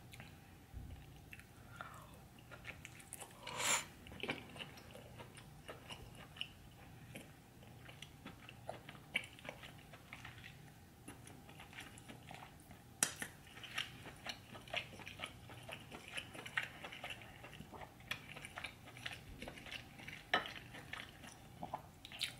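Close-miked chewing and biting of a buttery seafood boil, with wet mouth sounds and scattered light clicks. There are a few louder smacks, about 4, 13 and 20 seconds in.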